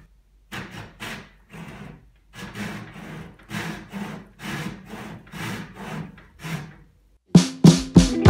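Flush-cut hand saw cutting wood against a dinghy's plywood transom in quick, even rasping strokes, about three a second. Near the end the sawing stops and louder strummed acoustic guitar music comes in.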